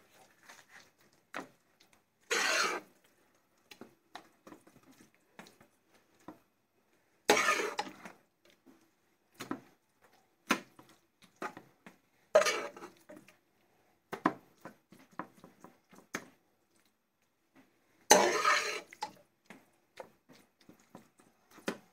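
Metal spoon scraping chicken keema out of a steel pot and spreading it over lasagna sheets in a foil tray: a string of separate scrapes and clinks, the longest about eighteen seconds in.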